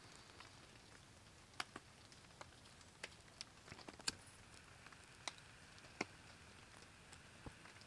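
Faint, irregular crackles and snaps, roughly one a second, from birch bark and split wood starting to burn in a stainless steel twig stove.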